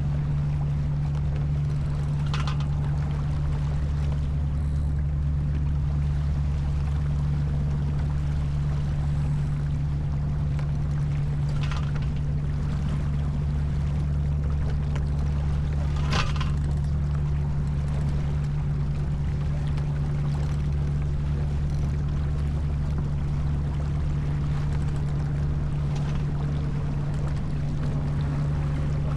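Steady low drone with water wash aboard a J/24 keelboat under way, with a few faint clicks or knocks about 2, 12 and 16 seconds in.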